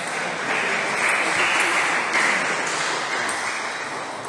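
Spectators applauding at the end of a table tennis rally, the clapping fading away near the end, with a few light clicks of ping-pong balls.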